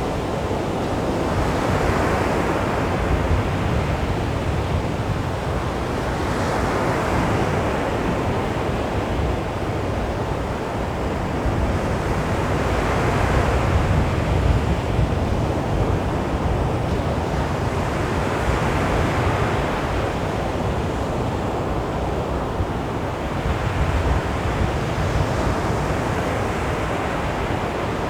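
Sea waves breaking and washing up on a beach. The surf swells about every six seconds over a continuous wash of water.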